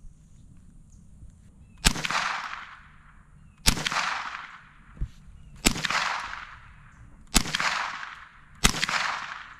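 Scoped rifle fired five times from a shooting rest, a shot about every two seconds, each crack followed by about a second of echo dying away; the string empties the magazine.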